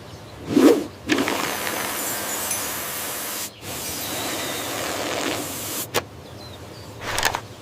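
A short whoosh, then a steady hiss that starts about a second in, breaks off for an instant midway and stops just before six seconds in.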